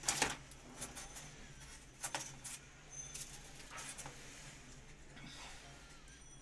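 Short, irregular bursts of plastic rustling and scratching as hands work electrical wire inside a clear plastic bag, the sharpest one right at the start.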